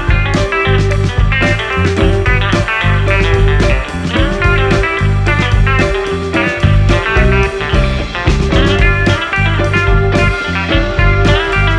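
Background music: a guitar-led blues-rock instrumental track with a steady beat.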